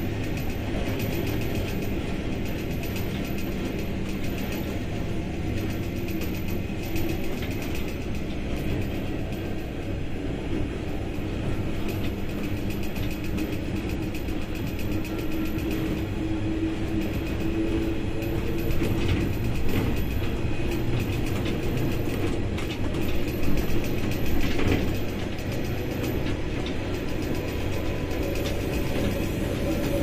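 Moving train heard from on board: a steady rumble of steel wheels on the rails with constant rattling and clicking, over a low running drone, and a few louder knocks past the middle.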